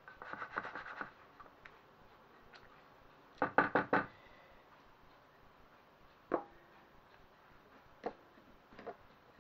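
A silicone spatula stirring and scraping orzo and stock in a metal roasting tin. About three and a half seconds in comes a quick run of about five knocks, the loudest sound here, and a few single knocks follow later.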